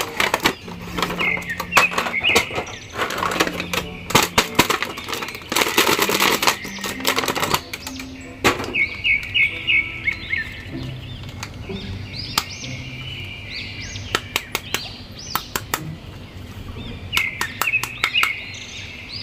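Crinkling and clicking of a plastic blister tray and cardboard box as an action figure is unpacked, densest in the first eight seconds, then scattered clicks of hard plastic as the figure and its shield are handled. Bird-like chirping recurs throughout over soft, low held notes.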